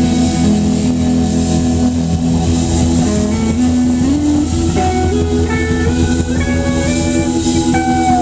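Live rock band playing on an open-air stage: electric guitar, drum kit and keyboard. Partway through, a line of notes climbs step by step over the steady drums and bass.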